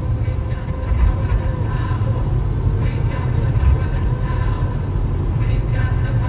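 Road and engine noise inside a car cruising at highway speed: a steady low rumble.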